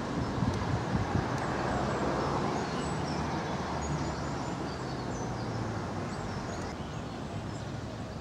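Outdoor ambience: a steady low rumble of distant road traffic with small birds chirping.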